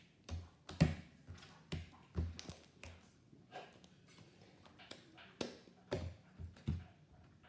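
Pink fluffy slime being stretched, folded and squeezed by hand, giving a run of irregular short clicks and pops.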